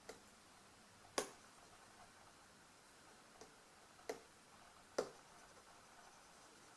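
A few sharp clicks and taps of hard objects being handled, with near silence between them: three louder ones about a second in, at about four seconds and at five seconds, and two fainter ones.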